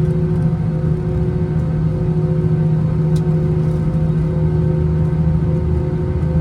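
Steady rumble and hum of an Airbus A320-200 heard from inside the passenger cabin: engine and airframe noise holding level, with a few constant droning tones.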